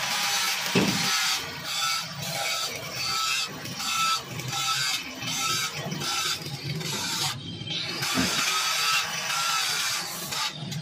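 Stick (shielded metal arc) welding on square steel tubing: the electrode's arc crackles steadily as a bead is run on the joint, with a few brief breaks.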